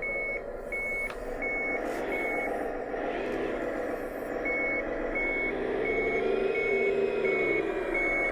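Electronic engine-sound module of a 1:14 scale RC wheel loader playing a simulated diesel running with a reversing beeper: four beeps, a pause, then six more, a little over half a second apart. The engine note rises and falls partway through the second run of beeps.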